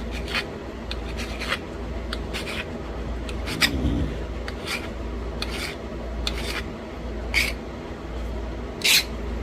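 Pressure flaking a small bird point from a thin flake of Buffalo River chert: short, sharp scratchy clicks about once a second as the tool tip pushes small flakes off the edge.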